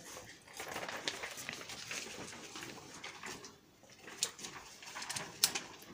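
Low handling and rustling noise with a few sharp clicks or knocks, the loudest about five and a half seconds in.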